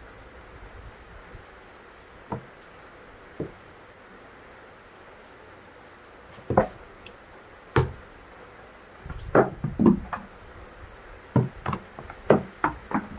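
Stiletto heels knocking on wet wooden steps: a few single sharp knocks spread out, then a quicker cluster of knocks over the last few seconds, over the steady hiss of falling rain.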